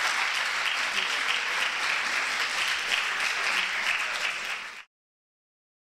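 Audience applauding: a dense, even patter of many hands clapping, cut off suddenly near the end.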